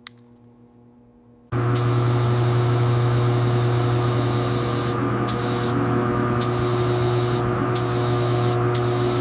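Paint spray gun hissing steadily over a constant motor hum, starting suddenly about a second and a half in; the higher part of the hiss drops out briefly several times in the second half.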